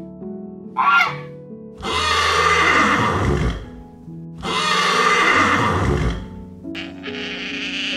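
A Canada goose honks once, then a horse whinnies twice, each whinny lasting about two seconds, over background music.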